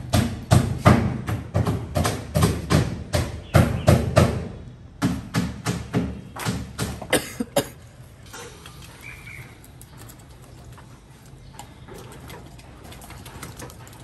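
Steady, evenly spaced knocks, about three a second, that stop about eight seconds in; after that only faint light taps.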